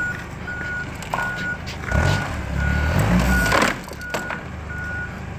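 Forklift's reversing alarm beeping steadily, a short tone about every three quarters of a second, over the low running of its engine. The engine grows louder from about two seconds in until nearly four seconds.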